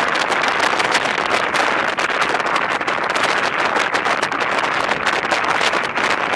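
Steady rush of wind buffeting the microphone over the road noise of a moving vehicle, with constant fluttering and no distinct events.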